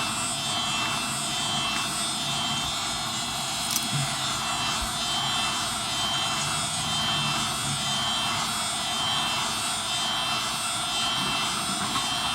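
Wagner heat gun running steadily at 950 degrees with a pointed nozzle, its fan blowing a constant hiss of hot air, with one small click about four seconds in.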